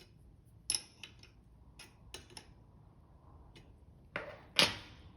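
Small machined metal parts of a model steam engine kit being handled on the bench: a series of light clicks and taps, then a brief scrape and a louder clack near the end.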